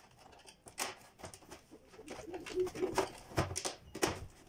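Plastic snap-fit clips of an LG 24MT47D TV-monitor's front bezel clicking and snapping as the frame is pried apart with a screwdriver. There are a few sharp clicks, the loudest bunched together near the end.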